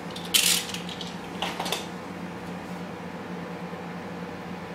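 Two short scratchy sounds about a second apart, the first the louder: a utility knife trimming a foam sticky pad. A steady low hum runs underneath.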